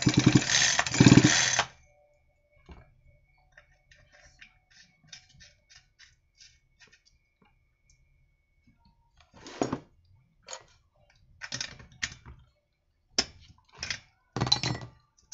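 Chainsaw's recoil starter pulled hard, its two-stroke engine cranking over for about a second and a half without firing. Then faint clicks and several short sharp knocks and clinks of metal tools being handled.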